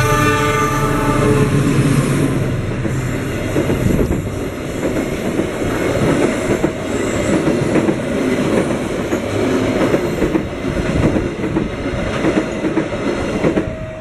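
A diesel-hauled passenger train, led by a GE CC206 locomotive, passes at speed. The locomotive's horn chord trails off in the first second or so along with its engine rumble, and then the coaches' wheels clatter steadily over the rail joints until the train has gone by.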